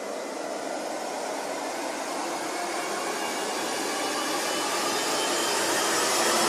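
Whooshing white-noise riser sound effect, a steady hiss that swells steadily louder as it builds toward a music hit.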